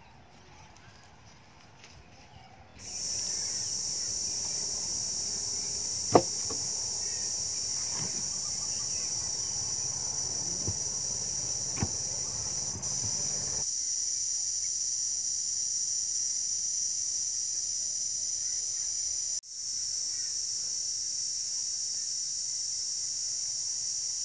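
Steady high-pitched chorus of insects, starting about three seconds in and dipping briefly twice. A sharp knock about six seconds in and a few fainter knocks sound over it.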